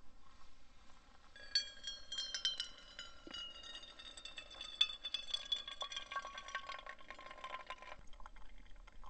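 Hot water poured from a kettle in a thin stream onto coffee grounds in a paper-lined pour-over cone. It is a faint trickle with a ringing tone that slowly falls in pitch; it starts about a second and a half in and stops about a second before the end.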